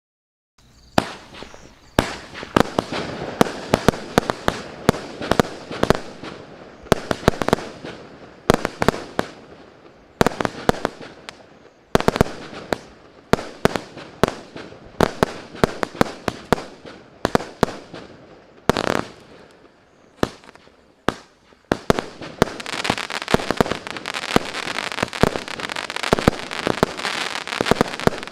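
150-shot, 0.8-inch-calibre fireworks cake firing: a fast, irregular run of sharp bangs from shots launching and bursting, with crackling between them, thickening into a dense, continuous crackle about 22 seconds in.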